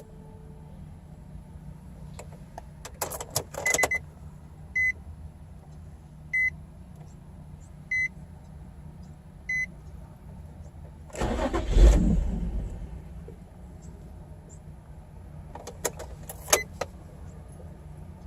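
A car's warning chime beeps five times at an even pace, then a 2006 Nissan 350Z's 3.5-litre V6 is cranked by the starter for about a second and a half but does not keep running: a failed start attempt on a car that is very hard to start. Clicks come before the chimes and again near the end.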